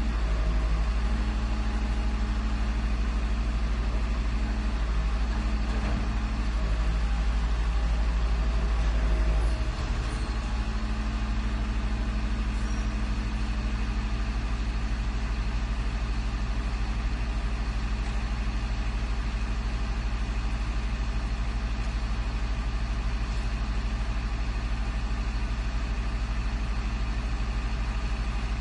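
Garbage truck engine running steadily with an even low drone. About ten seconds in its note changes and it drops a little in level, then settles into a steady idle.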